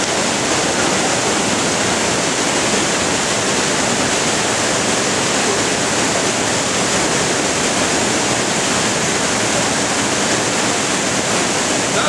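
Waterfall pouring down a narrow rock chute: a loud, steady rush of falling water.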